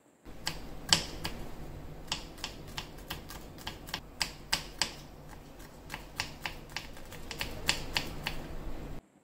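Knife chopping peeled garlic cloves on a wooden cutting board: irregular sharp taps of the blade on the board, about two to three a second, over a steady low hum.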